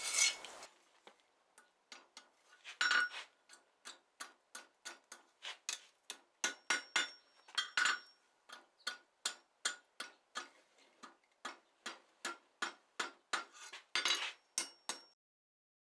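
Light hammer blows on red-hot steel over the horn of an anvil, about two a second with a faint ring, opening out the split horns of a stag-horn hinge into a sweeping S-curve. The blows stop near the end.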